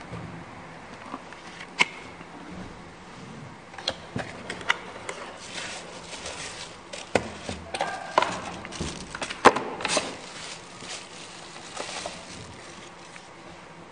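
Packaging being handled: a cardboard box opened and a plastic dome camera in bubble wrap pulled out and unwrapped, with crinkling and scattered sharp clicks and taps. The crinkling is busiest about halfway through.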